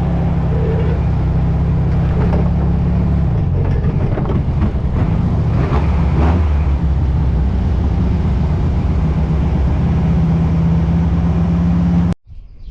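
Beach buggy's engine running hard under acceleration while driving, its note changing a couple of times as it is shifted through the gears; the clutch is grabbing and it catches every gear. The sound cuts off abruptly near the end.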